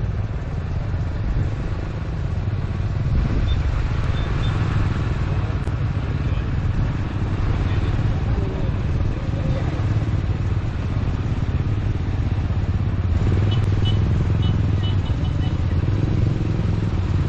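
Tractor engines running steadily as a slow line of tractors approaches, with people's voices mixed in.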